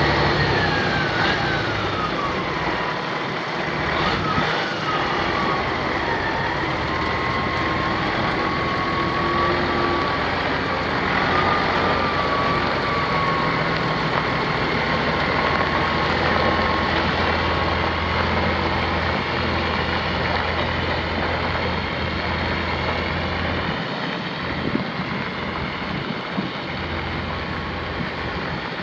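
Caterpillar 3406 inline-six diesel engine of a Ford LT9000 semi truck running steadily. A thin high whine drops in pitch over the first three seconds, then holds roughly level.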